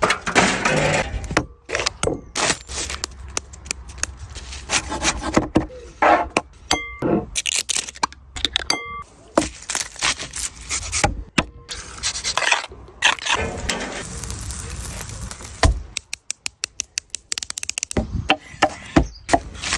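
A quick string of close food-prep sounds on a wooden cutting board: scraping, rubbing, crackling and knocks, with a few short beeps near the middle and a fast run of clicks near the end.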